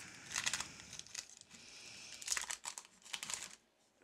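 Foil Pokémon booster-pack wrapper crinkling as it is handled, in several short bursts, then going quiet near the end.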